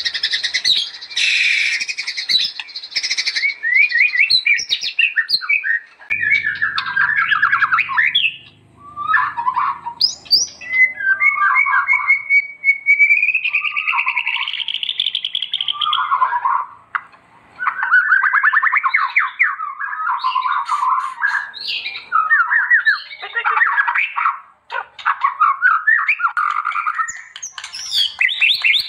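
White-rumped shama (murai batu) singing in full voice: a varied song of fast rattling trills and chattering phrases broken by brief pauses, with a long clear whistled phrase about midway.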